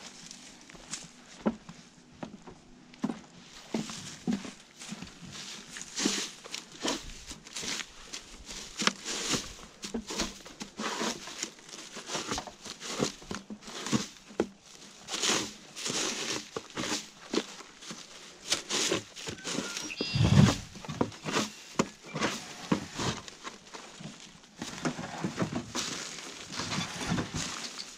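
Footsteps crunching through dry grass and onto weathered wooden boardwalk planks, with dry stems rustling and crackling at every step. A single heavy thud comes about 20 seconds in.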